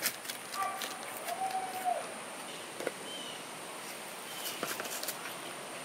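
Backyard ambience: light rustling and scattered clicks of children moving over dry fallen leaves, with a few short bird chirps and a brief high tone about a second in.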